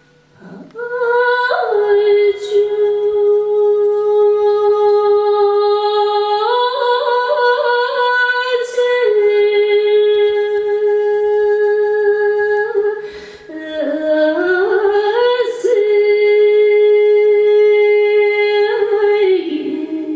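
A woman's voice singing unaccompanied in long, sustained notes with small wavering ornaments, breaking briefly between phrases.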